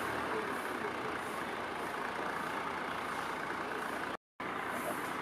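Steady street traffic noise, an even hum of vehicles with no distinct pass-by. It cuts out completely for a moment about four seconds in, then resumes.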